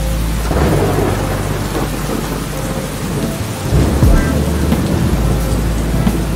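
Steady rain falling with rolling thunder: a rumble swells about half a second in and another rolls in around four seconds in.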